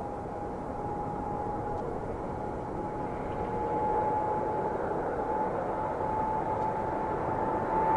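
Twin-engine widebody jetliner's engines at takeoff thrust during the takeoff roll: a steady jet noise carrying a whine that climbs slightly in pitch and grows gradually louder.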